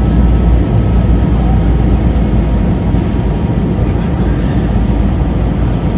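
Steady cabin noise of an Airbus A321 in flight, heard from a window seat over the wing: a loud, deep rumble of the jet engines and rushing airflow.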